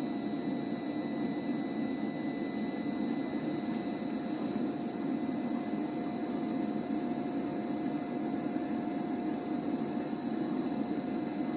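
A motor-driven earthworm machine running steadily: an even mechanical hum with a constant whine over it.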